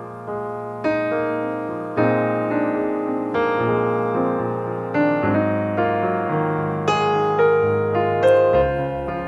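Background piano music: a slow, gentle melody of struck notes and chords, each note fading away before the next.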